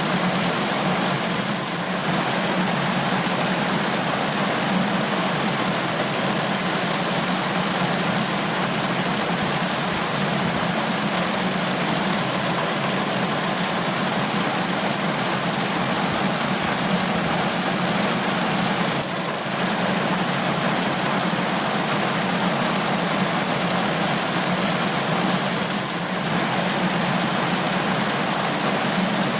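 Steady rain falling: a continuous, even hiss of rain.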